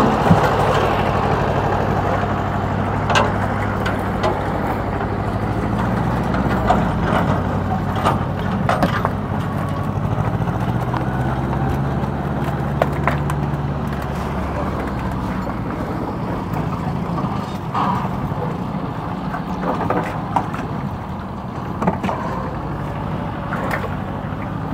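A small fishing boat's engine running steadily, with a few short knocks and clatters over it.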